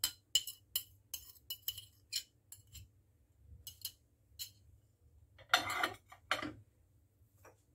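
Metal spoon tapping and scraping against a small ceramic dish, a quick run of sharp clinks over the first four seconds or so. About five and a half seconds in comes a louder, longer scraping noise, then one short knock.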